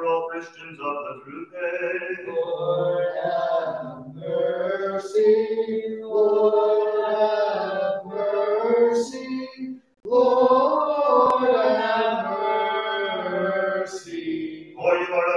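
Byzantine-rite liturgical chant: voices singing long, held melodic lines, with a brief break between phrases about ten seconds in.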